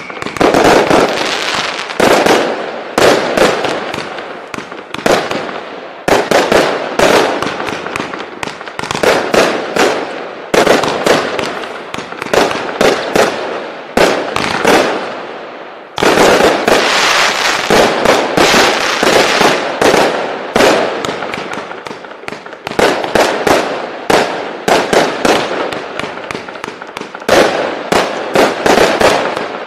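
Jonathans Fireworks 'Showtime' compound firework cake firing continuously: rapid sharp shots, several a second, with the bursts' crackle filling the gaps between them. There is a short lull about halfway through before the shots pick up again.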